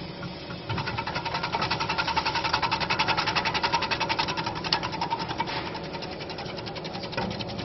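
QP-300 fruit and vegetable slicing machine running, its cutter making a rapid, even clatter of about ten strokes a second. The clatter grows louder less than a second in and eases after about five seconds.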